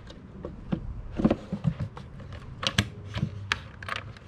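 A 2005 Toyota RAV4's plastic air cleaner housing being fitted back over the air filter: a series of irregular plastic clicks and knocks as the cover is pushed and seated into place.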